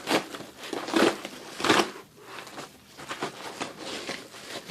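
Crinkling and crackling of plastic or paper packaging being handled and opened. There are a few louder rustles in the first two seconds, then softer irregular crinkles.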